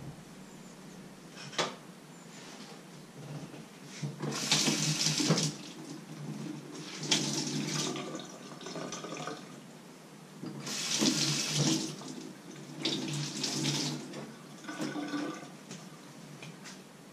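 Kitchen tap running into a stainless steel sink in several short bursts as a cloth is rinsed under it, with a sharp click a couple of seconds before the water starts.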